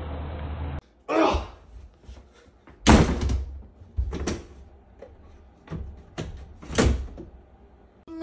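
Plastic pet-door flap in an interior door knocking and slapping shut about five times, the loudest about three seconds in.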